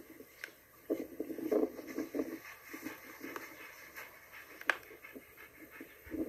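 Dog panting rapidly in bursts, with a sharp click about three-quarters of the way through.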